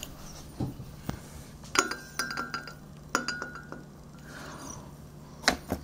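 Glass light bulbs clinking against each other as they are handled: two ringing clinks about a second and a half apart. Duller handling knocks come before them, and a sharp knock comes near the end.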